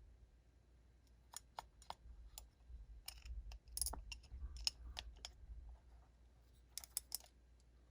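Small knife parts clicking and tapping together as a folding knife's handle scales, standoffs and screws are fitted and lined up by hand: scattered light clicks, some in quick runs of two or three.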